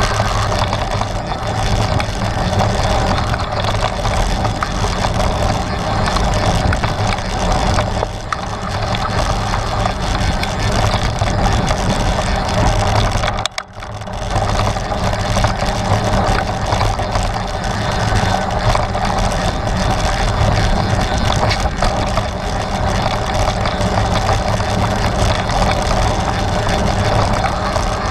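Steady rumble of a Trek Stache 9 29+ mountain bike riding a dirt trail: tyres on dirt and rock, with the bike rattling. It dips sharply for a moment about halfway through.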